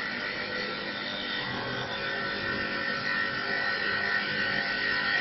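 Mini CNC wood-turning lathe cutting a wooden blank: a steady cutting noise over a constant high machine whine.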